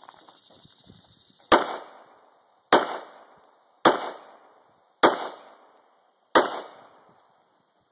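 Five pistol shots, a little over a second apart, each dying away briefly after the crack.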